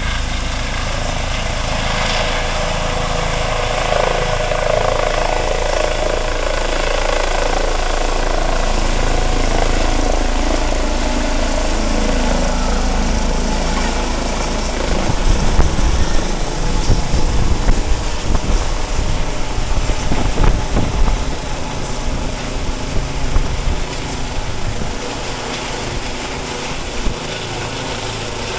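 Eurocopter EC135 air-ambulance helicopter lifting off and climbing away, its turbines and rotor running steadily at high power. Midway it passes overhead, with a stretch of loud, irregular low buffeting and thumping, then eases off.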